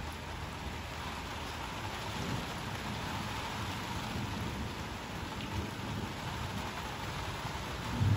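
Steady rain falling, with a low rumble of thunder underneath. A brief louder low thump comes near the end.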